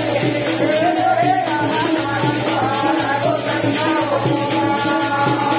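Men singing a rustic languriya devotional folk song together, with wooden hand clappers clacking in rhythm under the voices.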